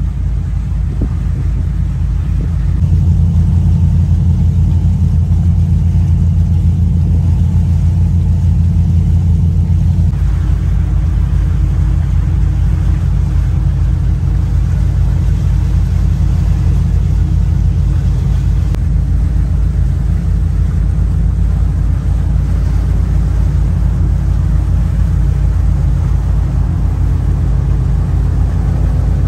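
A boat's engine running under way: a steady low rumble that grows louder about three seconds in and changes its tone around ten seconds in.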